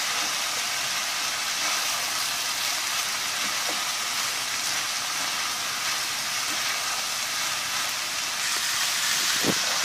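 Diced potatoes, carrots, peas, onion and vermicelli sizzling steadily in oil in a frying pan as a spatula stirs them through the spices.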